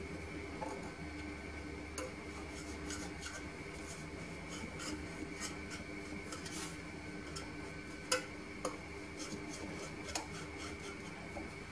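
Metal cake mould being pressed and twisted down through a genoise sponge sheet to cut out a round: faint rubbing and scraping, with a few light ticks, the sharpest about eight seconds in.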